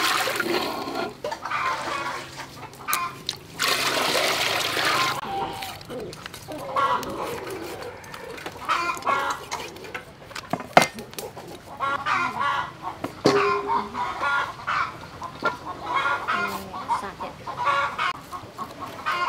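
Chickens clucking on and off. Water is poured into a pot of soup broth twice, in the first second and again from about four to five seconds in, and a cleaver knocks sharply on cooked cow head bone twice, about eleven and thirteen seconds in; the first knock is the loudest sound.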